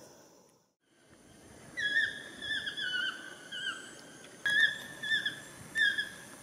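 Yellow-throated toucan calling: a string of loud yelping notes that drop in pitch at the end. One group starts about two seconds in and a second follows in the last two seconds.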